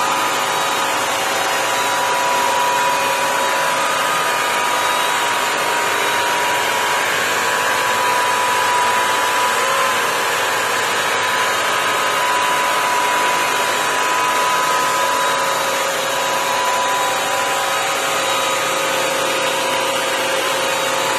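Bissell CrossWave wet-dry vacuum running steadily in hard-floor mode as it cleans the floor. Its motor gives a loud, even whine with a few steady tones over rushing suction air.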